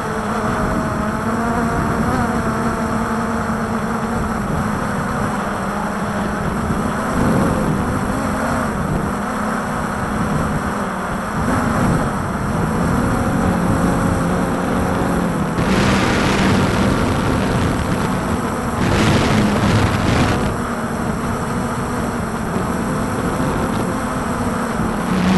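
Walkera Tali H500 hexacopter's six motors and propellers humming steadily, the pitch wavering slightly as they hold the drone against the wind. Strong wind buffets the microphone throughout as a low rumble, with louder gusts twice past the middle and again at the end.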